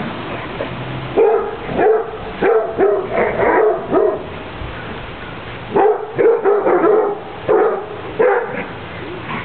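Dog barking in quick runs of short barks, in two bouts: one starting about a second in, the other just before the middle and running until near the end.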